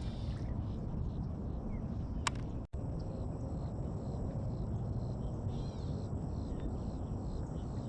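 Outdoor ambience on open water: a steady low rumble, likely wind on the microphone, with faint repeated high chirps. The sound cuts out for an instant about three seconds in.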